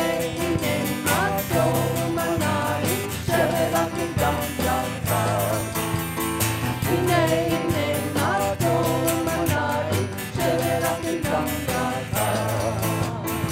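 Upbeat worship dance music: a singing voice carrying the melody over instruments and a steady beat.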